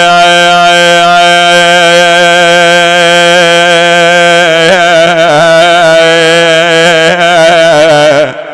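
A male lament reciter's voice holds one long sung wailing note for about eight seconds. It is steady at first, then breaks into ornamented wavering turns about five seconds in and again near the end, and stops just before the end.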